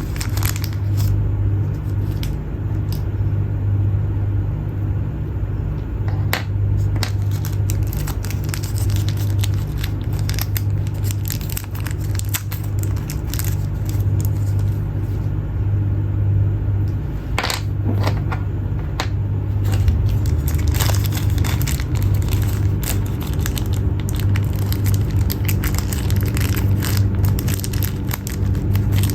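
Packaging being handled, with scattered clicks, crackles and crinkling over a steady low hum.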